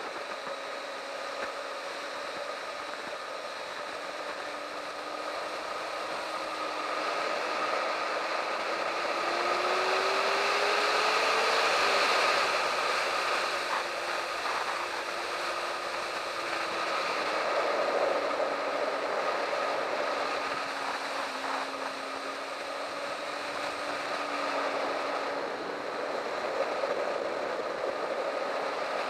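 Sport motorcycle at track speed heard from a camera mounted on the bike: the engine note with heavy wind rush over it. The engine pitch climbs under acceleration about ten seconds in, peaks around twelve seconds, then falls back gradually as the bike slows for the corners.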